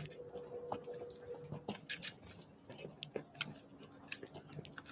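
Small birds pecking and hopping at a feeder: irregular light taps and clicks, several a second, with one brief high peep about two seconds in.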